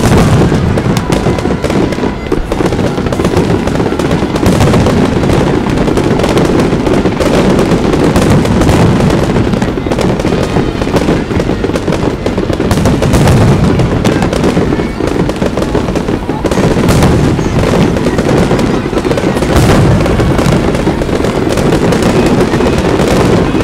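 Aerial fireworks bursting one after another in a loud, near-continuous barrage of booms and crackling.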